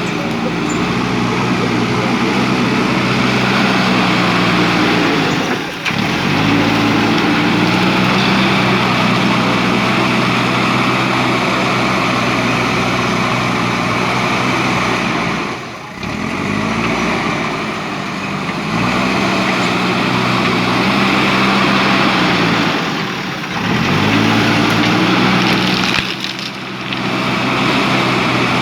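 JCB 3DX backhoe loader's diesel engine running at working revs. Every several seconds its note sags briefly, then climbs back up in pitch as the digging hydraulics take and release load.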